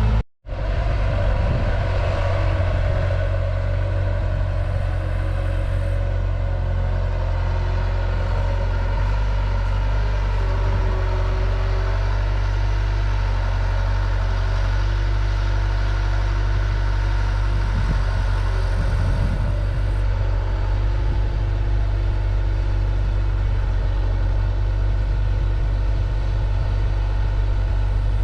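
Diesel engine of a compact construction machine (skid steer or mini excavator) running steadily. The sound cuts out for an instant about half a second in.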